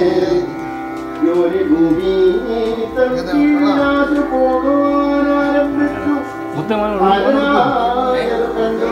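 Background music: a gliding melody over long held notes.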